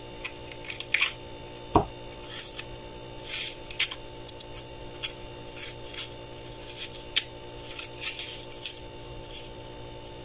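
Small kitchen knife paring and scraping the flesh of a soft, overripe apple: a run of short, irregular scrapes and cuts, with one dull thump about two seconds in.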